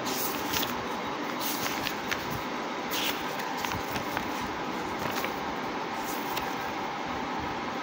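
Paper pages of a textbook being turned and handled, with a few short rustles, over a steady background hum.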